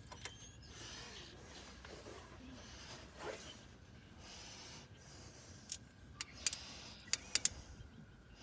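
Small parts being handled in an engine bay: soft rustling, then a quick run of about six sharp, light clicks in the second half.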